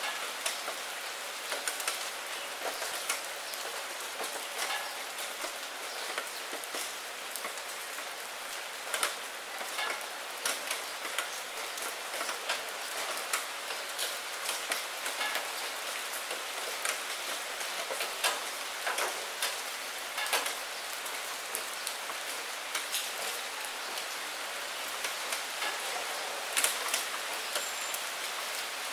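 Steady rain falling into a puddle strewn with fallen maple leaves: an even hiss dotted with many sharp individual drop hits.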